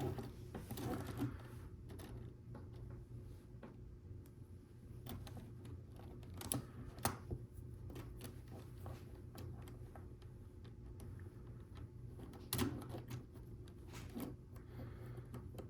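Small plastic Lego Technic pieces being handled and pushed together: irregular light clicks and rattles, with a few louder snaps now and then.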